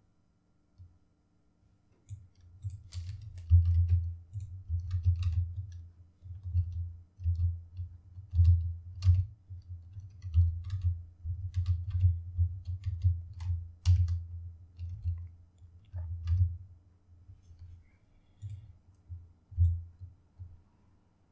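Computer mouse clicks and keyboard key presses, irregular and scattered, over loud, irregular low bumps.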